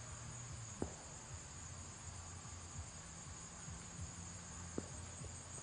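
Steady high-pitched trilling of insects in summer woodland, with two faint sharp knocks, about a second in and near the end.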